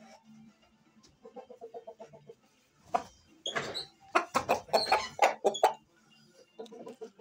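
A gamecock held on the lap makes quick runs of short, low clucks, about eight a second. From about three seconds in comes a louder, harsher stretch of about four pulses a second that lasts until nearly six seconds in.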